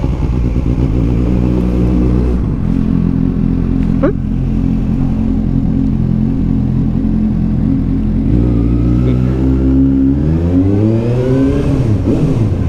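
Suzuki GSR750's inline-four engine running at low speed. Its pitch steps down about two seconds in, then rises and falls again near the end as the throttle is opened and closed. A short rising squeak comes about four seconds in.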